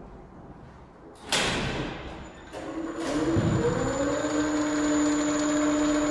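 Elevator traction machine starting up: a loud clack about a second in, then the motor's hum rises in pitch over about a second and settles into a steady two-note hum, with a faint high steady whine above it.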